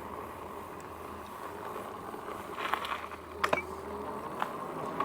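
Magicycle e-bike being ridden: a steady hum with a faint whine, with a few light knocks about halfway through.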